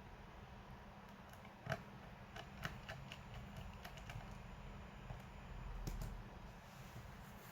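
A few scattered light clicks and taps from handling an Acer V5-471P laptop, over a low steady hum.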